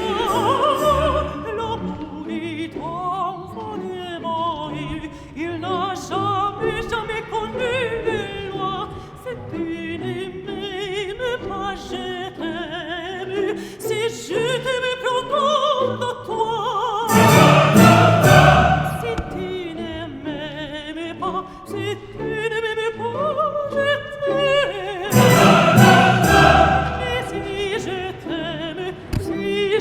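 Background music: a sung vocal with vibrato over orchestral accompaniment, swelling louder twice.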